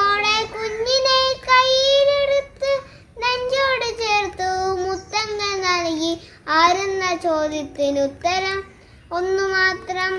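A young boy singing solo with no accompaniment, in phrases of long held notes separated by short pauses for breath.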